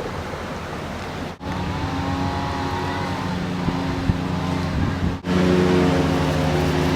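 A motor vehicle engine running steadily, heard in cut-together stretches and louder after about five seconds.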